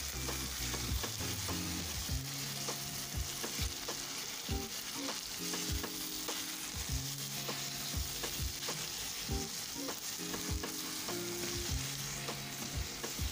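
Shredded vegetables sizzling as they fry in oil in a metal pan, with a steady hiss throughout. A silicone spatula stirs them, knocking and scraping against the pan at irregular intervals.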